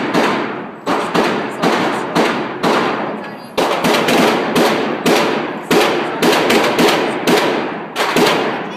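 Handgun shots fired in quick succession, about fifteen in all, mostly half a second to a second apart, each ringing off before the next.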